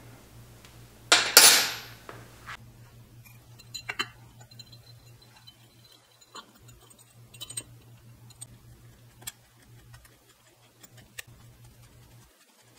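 Scattered small metallic clicks and taps of a screwdriver and hands working on a motorcycle carburetor, with one short rushing burst about a second in, over a faint steady hum.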